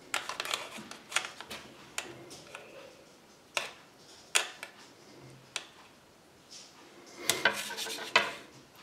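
Knife and fork clicking and scraping against a thin aluminium foil tray while a block of baked cheese is cut, in scattered sharp taps with a busier run of scraping about seven seconds in.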